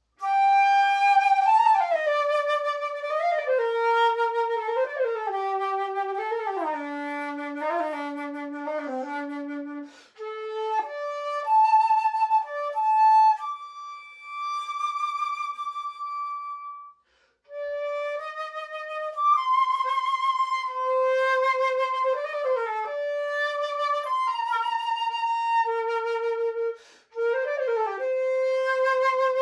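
Concert flute played solo: a melody that steps down into the low register over the first ten seconds, then goes on in phrases broken by brief pauses.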